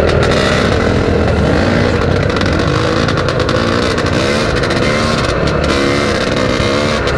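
Dirt bike engines running while riding off across rough grass. The engine note rises and falls over and over as the throttle is opened and closed.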